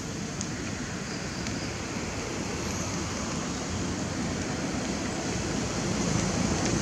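Steady rain falling, an even hiss, with a low rumble growing louder toward the end.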